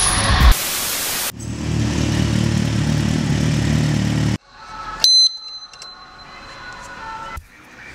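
A brief burst of hiss, then a motorcycle engine rumbling low for about three seconds, cut off abruptly. A moment later comes a single metallic clink that rings briefly.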